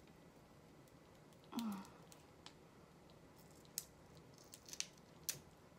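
Sparse, crisp clicks and crackles as a live shrimp's shell is worked apart by hand, over a quiet room. A short low sound that drops in pitch about a second and a half in is the loudest thing.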